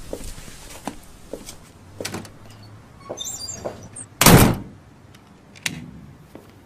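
A series of light knocks and clicks, a brief high tinkling, then one loud short thud with a rush of noise a little over four seconds in, and a last sharp click near the end.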